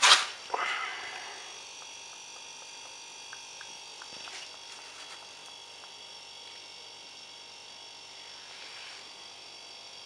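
Used engine oil being pushed out by pressure from a workshop oil-drain unit through its hose into a plastic bottle: a couple of loud knocks in the first second, then a steady hum.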